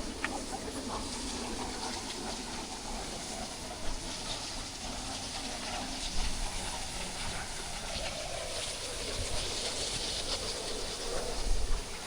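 Steady rushing of a waterfall's falling water, with a faint sound that sinks in pitch partway through.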